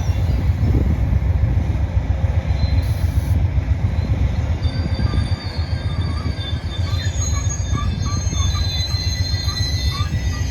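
Amtrak Coast Starlight passenger train rolling past: a steady low rumble of wheels on rail with thin, high wheel squeals over it. From about seven seconds in, a quick string of short squeaks joins it.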